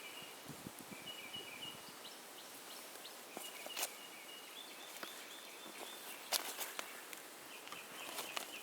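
Outdoor garden ambience: a bird or insect giving high, level calls that come and go several times, with a few sharp clicks and light rustling.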